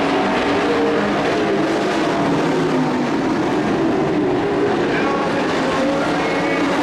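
A field of dirt-track racing pickup trucks running at full throttle together at the green-flag start. Their engine notes overlap in a loud, steady drone with several pitches at once.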